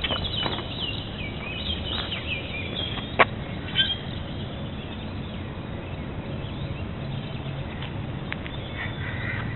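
Birds chirping and calling at dusk by a lake, with many quick high chirps in the first few seconds and fainter calls near the end. Two sharp clicks come about three and four seconds in.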